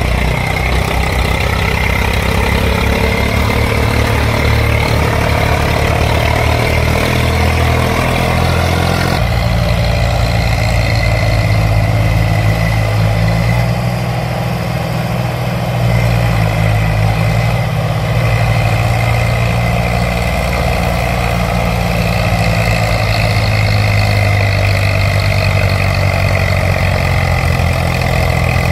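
Steady tractor-engine sound, running without let-up, with an abrupt change in its tone about nine seconds in.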